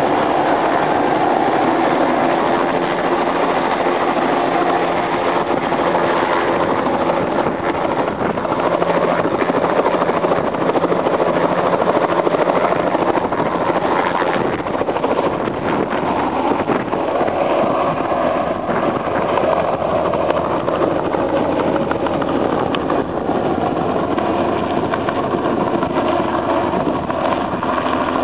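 Bell 206 JetRanger helicopter's turboshaft engine and main rotor running at close range as it lifts off and climbs away, a loud, steady helicopter sound.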